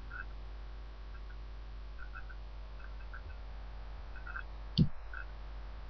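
Quiet room tone with a steady low mains hum and a few faint soft ticks. A single short, sharp click comes about five seconds in.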